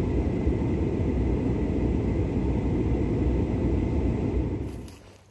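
Steady low rumble of a vehicle, heard from inside it, fading out near the end.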